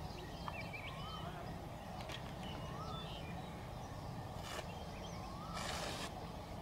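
Birds calling: one bird repeats a short rising-then-falling whistle about every two seconds, with fainter higher chirps between. Underneath is a steady low rumble, and near the end a half-second rush of noise is the loudest moment.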